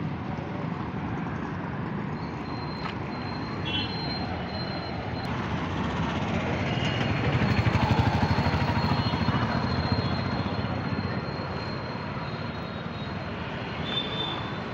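Street traffic: motorbike and small goods-vehicle engines running close by. The noise swells to its loudest about halfway through, with a rapid engine throb, then eases off.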